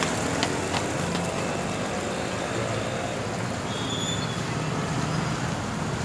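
Steady roadside traffic noise with a vehicle engine running, and a short high beep about halfway through.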